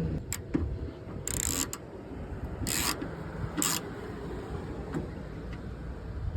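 Ratchet wrench running in the 10 mm bolts on a car's trunk latch: a couple of clicks, then three short rasping bursts of ratcheting over a few seconds.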